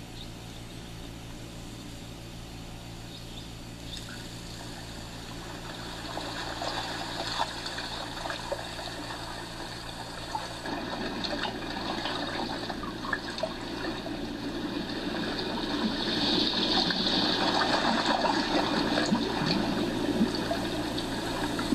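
Steady sound of moving water that swells louder about halfway through and is loudest in the last few seconds.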